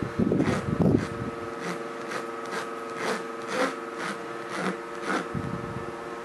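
A foam brush scrubbing back and forth over the resin drills of a diamond painting as sealant is spread on, about two scratchy strokes a second, over a steady background hum. Low thumps come in the first second and again near the end.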